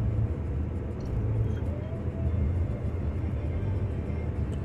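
Steady low rumble of a car heard from inside the cabin while driving: engine and tyre noise on a wet, snow-covered road.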